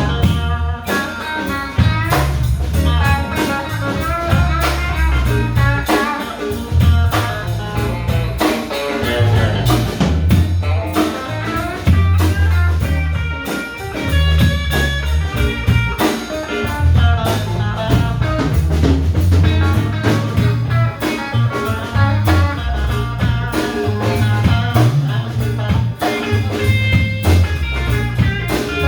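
Live blues band playing an instrumental solo section: electric guitar lines over a walking bass and drum kit.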